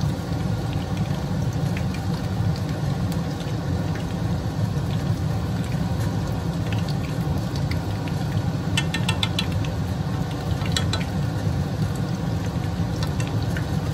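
Pieces of chicken karaage deep-frying in hot oil, sizzling steadily. A quick run of sharp crackles comes about nine seconds in, with a few more pops a little later.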